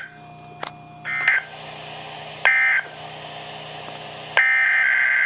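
Emergency Alert System SAME digital data bursts, a harsh buzzing warble. Two short bursts, about a second and a half apart, finish the end-of-message code that closes a winter storm warning. About four seconds in, a longer burst starts: the header of the next alert.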